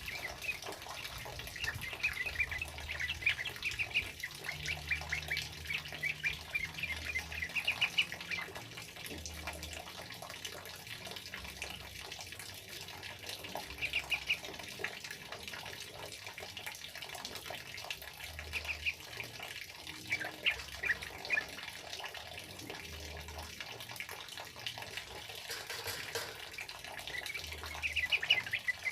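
Yellow-vented bulbuls singing in rapid chattering bursts over the steady hiss of heavy rain. The bird bursts come in runs, busiest in the first several seconds, then again around the middle and near the end.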